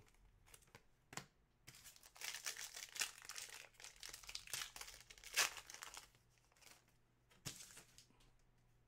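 Foil pack of Panini Select football cards being torn open and crinkled by hand: a crackling rustle lasting about four seconds, starting near two seconds in, with a couple of sharp small ticks before and after it.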